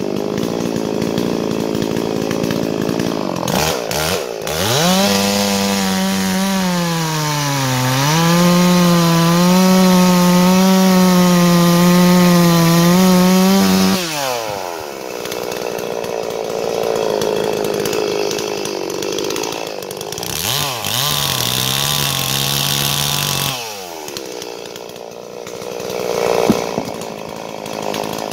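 Large two-stroke Farmertec Holzfforma chainsaw at full throttle cutting a round off a big dry hardwood log, its pitch sagging and recovering under load. About halfway through, the round drops free and the saw comes off full revs, then runs more unevenly at lower speed and eases down near the end.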